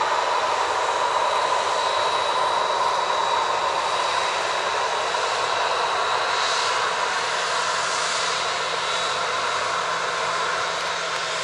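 Boeing 737-800 jet engines (CFM56-7B turbofans) running steadily as the airliner taxis past, a jet rush with a steady whine. The sound eases slightly near the end.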